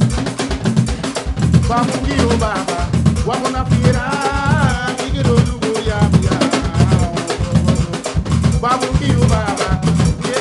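Live jam of a Roland XP-80 synthesizer and a hand drum: a steady thumping drum beat with wavering synth melody lines over it.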